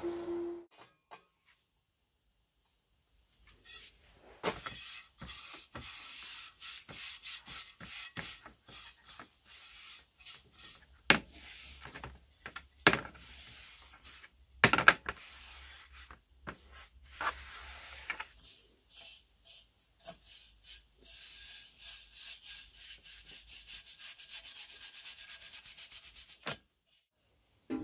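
Bristle paint brush scrubbing a dark liquid onto bare sheet-metal parts: a long run of short, scratchy back-and-forth strokes with a few louder knocks along the way, turning into quick, even strokes near the end.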